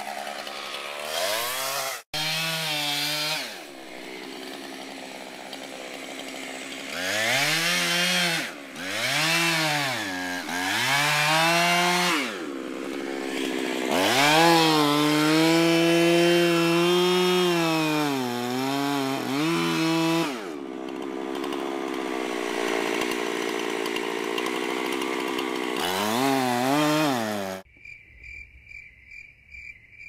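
Gas chainsaw cutting through thick tree wood, revving up and dropping in pitch under load again and again, with a brief dropout about two seconds in. Near the end the saw cuts off suddenly and crickets chirp in a fast, steady pulse.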